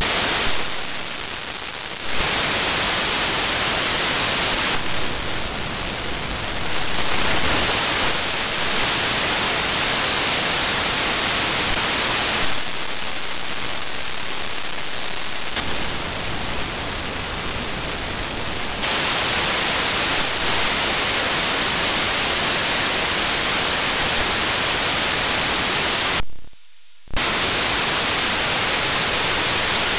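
Steady loud hiss of FM static from an HDSDR software-defined radio's audio output, tuned through the FM broadcast band with no station coming through. The hiss drops out briefly once near the end.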